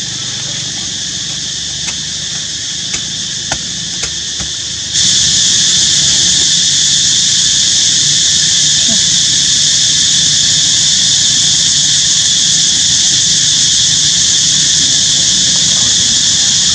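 Steady high-pitched buzz of an insect chorus, which gets suddenly louder about five seconds in.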